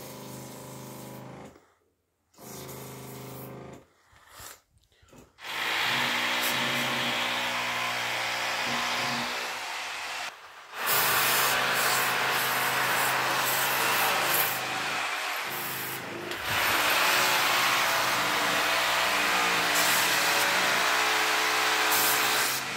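Motorized sprayer pump running while termiticide hisses out of a long spray lance. It comes in a few short bursts at first, then runs steadily from about five seconds in, with a brief drop about halfway through.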